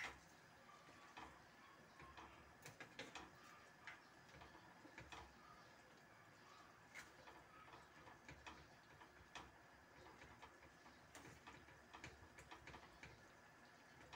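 Faint, irregular clicks and scrapes of a spatula against a stainless steel pan while stirring taro leaves in coconut milk.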